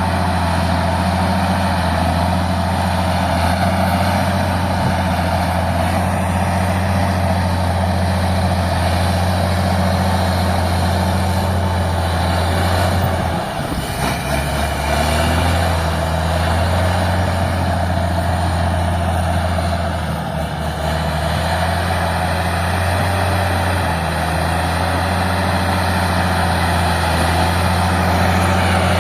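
Old Caterpillar D6 crawler tractor's diesel engine running with a deep, steady note. Its speed dips briefly about halfway through and again about two-thirds of the way in.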